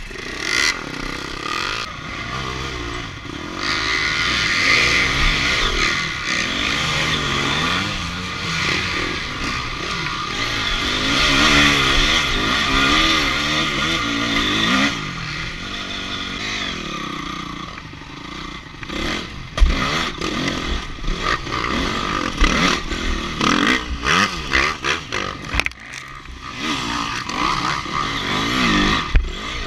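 Enduro dirt bike engine heard close up from the bike itself, revving up and down constantly as the throttle works over rough ground, with chassis rattle. A few sharp knocks from the bike hitting bumps, with more near the end as it crosses log steps.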